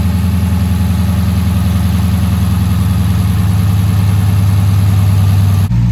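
Dodge Challenger R/T's 5.7-litre Hemi V8 idling steadily, running on its newly installed starter's start.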